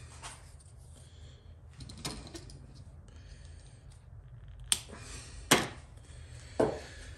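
Small hand-handling noises while a length of serving thread for a bowstring nocking point is pulled from its spool and worked by hand: faint rustles and ticks, then three sharp clicks in the second half.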